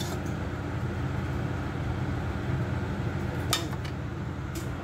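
A steady low hum with two brief clinks of tableware, about three and a half seconds in and again near the end.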